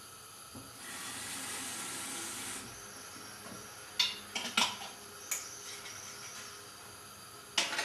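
Light tomato sauce with olive oil heating in a saucepan over a gas burner, hissing and sizzling. The hiss swells for about two seconds near the start, and a few sharp clicks come about halfway through and again near the end.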